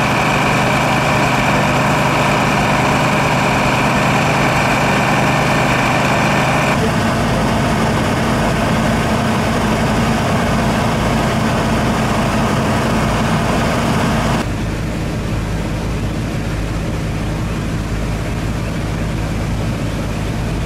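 Fire engines' diesel engines running at a steady speed, driving the fire pumps that feed the hoses. The steady drone changes abruptly twice, about seven and fourteen seconds in, each time to a different pitch and weight.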